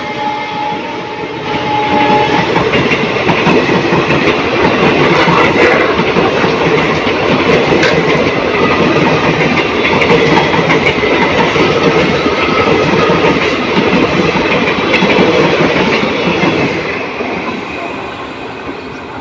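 A passenger express train passing at speed: the horn of its WDP4B diesel locomotive trails off in the first two seconds, then the coaches rush past loudly with wheels clattering over the rail joints, fading away near the end.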